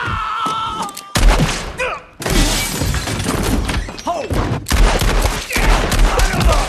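Film shootout sound: a held cry, then sudden loud gunshots about a second in, again near two and a half seconds and near five seconds, with shattering and breaking and shouting voices between the shots.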